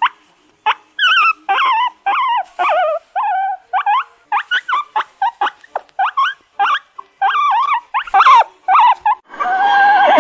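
A dog, high-pitched like a puppy, giving a rapid series of short yips and whimpering whines with brief gaps between them. A louder, longer call begins near the end.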